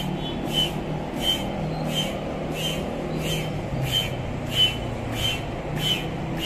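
Manual air pump inflating the tube of an inflatable rubber boat through a hose: a short hiss of air with a thin whistling note on each stroke, about three strokes every two seconds.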